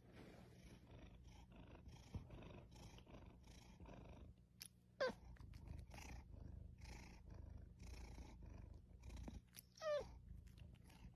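A cat purring faintly in a steady rhythm. Two short high squeaks fall quickly in pitch, about five seconds and ten seconds in.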